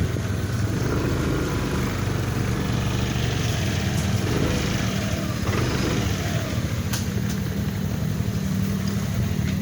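Vehicle engine running at a steady speed while on the move, with wind noise on the microphone.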